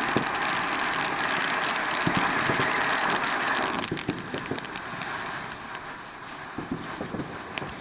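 Blue smoke firework with white strobe burning with a steady hiss that cuts off suddenly about four seconds in, with scattered small pops through it.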